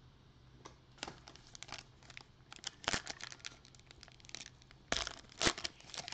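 Foil trading-card pack wrapper being torn open and crinkled by gloved hands: irregular crackles and tearing starting about a second in, loudest about three and five seconds in.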